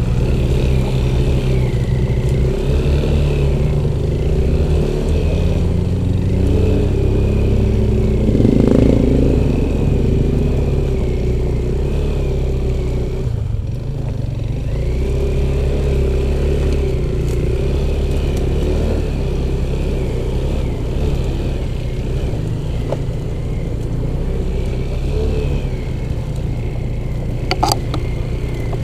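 Off-road motorcycle engine running with the throttle rising and easing, its note wavering, dipping briefly about halfway through. A short clatter near the end.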